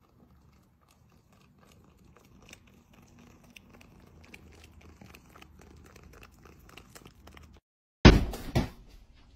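A cat chewing and gnawing on something held in its front paws: faint, quick, irregular crunching clicks. Near the end, after a short gap, a sudden loud burst of noise.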